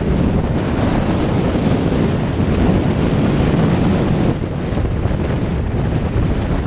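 Wind buffeting the microphone over the rush of choppy water around a sailboat under way. The level dips slightly a little after four seconds.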